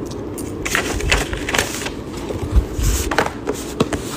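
Handling noise: a hand brushing and rubbing against the phone right at its microphone, a run of irregular short rustles and scrapes over a steady low room hum.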